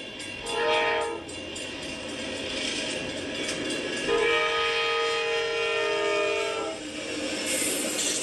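Amtrak P42DC diesel locomotive's multi-chime air horn: a short blast, then a long blast of about two and a half seconds, over the steady noise of the moving train.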